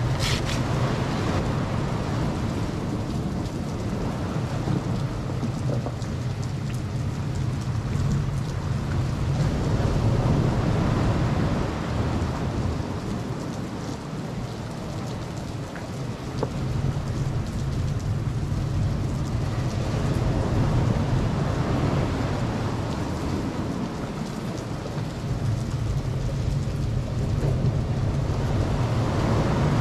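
Low rumbling wind noise buffeting the microphone, mixed with the wash of ocean surf. It swells and eases in slow waves about every ten seconds.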